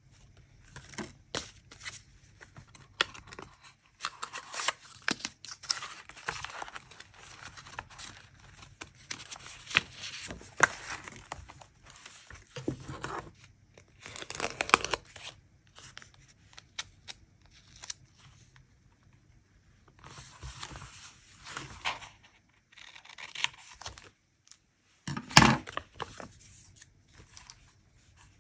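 Close-up paper sounds: stickers peeled from their backing with tweezers and paper rustled and pressed into a journal, in on-and-off bursts of crackly rustling with small clicks. The loudest bursts come about halfway through and near the end.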